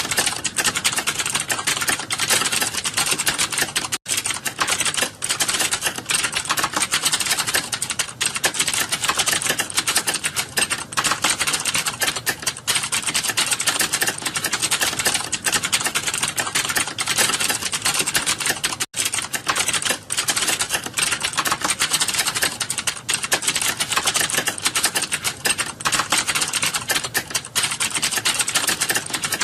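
Fast, continuous typing on a computer keyboard during a timed typing-speed test, the keys clacking many times a second. There are two split-second breaks, one about four seconds in and one near the middle.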